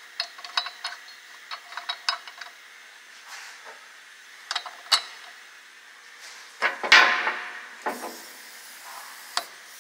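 Light metallic clicks and taps of lug nuts and a hub-centric ring being handled on an aluminium wheel spacer. About seven seconds in comes a short loud hiss of compressed air from a pneumatic impact gun, with a smaller one a second later.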